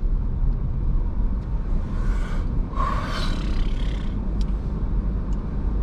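Steady low road and engine rumble heard inside the cabin of a moving Toyota RAV4.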